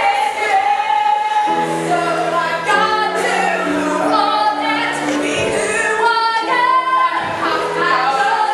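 Voices singing a song together in two parts, a lower and a higher line, with many notes held.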